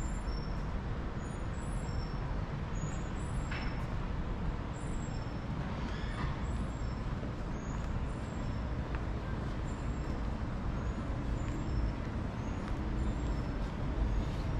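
City street traffic: a steady low rumble of motor vehicles running and passing.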